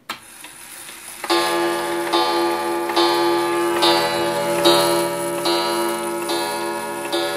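Carillon 31-day wall clock striking the hour on its coiled gong: evenly spaced strokes a little under a second apart, starting about a second in, each ringing on into the next.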